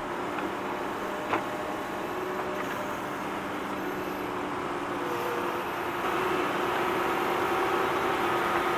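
Tractor engine running steadily while digging, with one sharp clank about a second and a half in. The engine grows louder about six seconds in.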